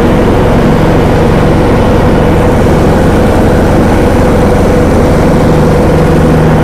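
John Deere D105A riding mower's engine running steadily under mowing load, with its deck blades driven by a newly fitted belt.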